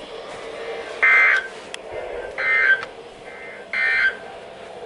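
Three short bursts of the NOAA Weather Radio EAS/SAME digital data signal, a harsh two-tone warble, sent about one and a half seconds apart over faint radio hiss. They are short enough to be the end-of-message code closing the warning that has just been read.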